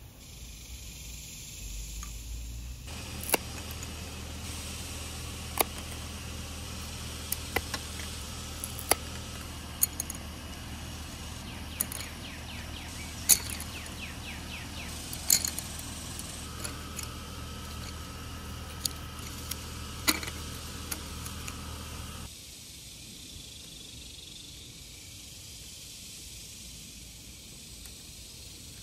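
Wooden dowels clicking and knocking irregularly as they are set and stacked into the grooves of wooden posts, over a steady low hum that drops away about three-quarters of the way through.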